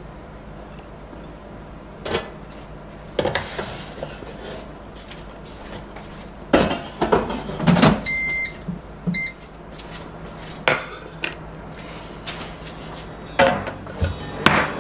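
Air fryer being loaded and unloaded: a ceramic baking dish and the fryer's basket knock and clunk several times, and the control beeps twice, about eight and nine seconds in, as it is set. A low steady hum runs underneath.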